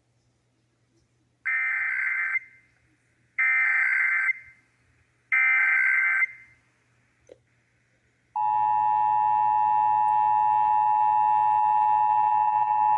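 Emergency Alert System Required Monthly Test signalling: three bursts of the SAME header's warbling data tones, each about a second long and about a second apart, then, after a short gap, the steady two-tone EAS attention signal begins and holds.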